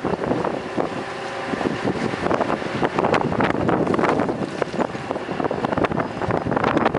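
Blizzard wind buffeting the microphone in irregular gusts, over the steady running of heavy mining machinery: a haul truck and an excavator.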